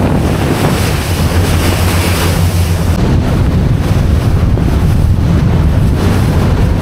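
Strong wind buffeting the microphone over a steady low rumble.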